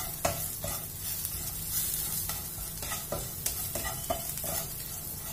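Wooden spatula stirring crushed garlic, ginger and green chilli as they fry in a nonstick pan: a steady sizzle with irregular scrapes and taps of the spatula on the pan, about two a second. The aromatics are being sautéed to cook off their raw pungency.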